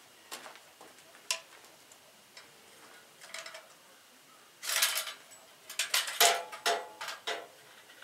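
A thin steel sawmill bandsaw blade clinking and rattling as it is handled and taken off the blade sharpener. A few light clicks come first, then louder metallic clatter about halfway through and again a little later.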